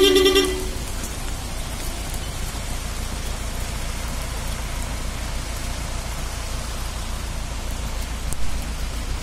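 Steady sound of rain mixed with small white ice pellets falling on a wet road and brick paving. A two-tone vehicle horn is sounding as it begins and cuts off about half a second in.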